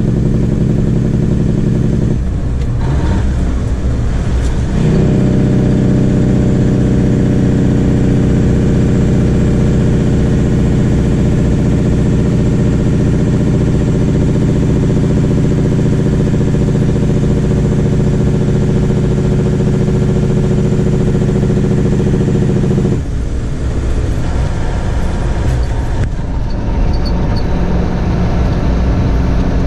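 International Eagle semi truck's diesel engine running steadily as the truck drives at road speed, heard from inside the cab. Its note shifts briefly a few seconds in and again about 23 seconds in as the engine speed changes.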